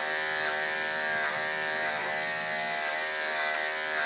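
Corded electric dog clippers fitted with a two guard comb running with a steady hum while being drawn through a dog's thick coat.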